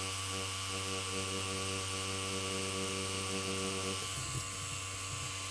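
Tattoo machine running with a steady hum while the needle works into silicone practice skin; its tone shifts slightly about four seconds in.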